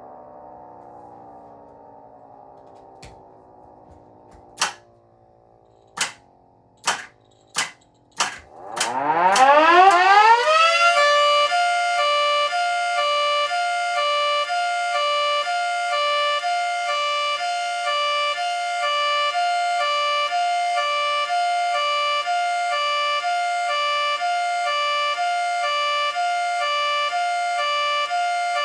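Miniature model 3T22 siren: a falling tone winds down, followed by a few sharp clicks. About nine seconds in, the rotor spins up with a rising whine and settles into a steady hi-lo signal, switching back and forth between two pitches.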